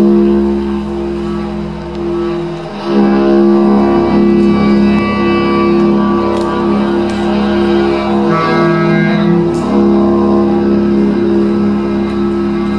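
Improvised live music: layered, sustained drone tones with higher notes shifting over them. The sound dips briefly and swells again about three seconds in.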